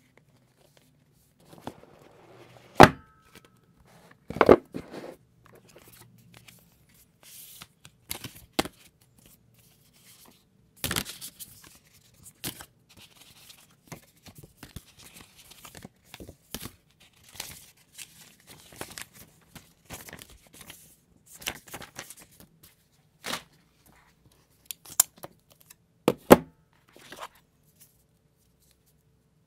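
Hands unpacking an iPhone 7 Plus retail box: cardboard, paper inserts and accessories rustling and sliding, with many sharp clicks and knocks scattered through. The loudest knocks come near the start and near the end.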